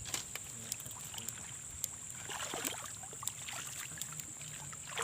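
Water splashing and dribbling in short spells, about two seconds in and again at the end, over a steady high-pitched insect drone.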